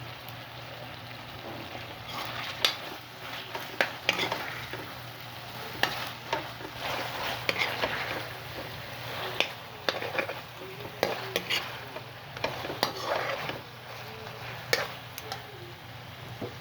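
Food sizzling in a frying pan while a utensil stirs it, with sharp clicks and scrapes against the pan at irregular intervals and a steady low hum underneath.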